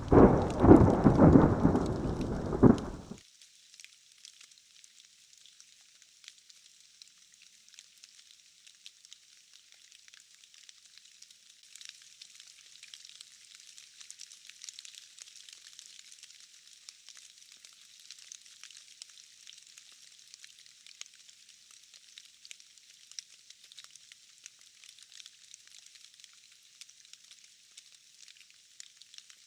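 Thunder: a loud clap and roll in the first three seconds that cuts off suddenly. After it comes a steady hiss of light rain.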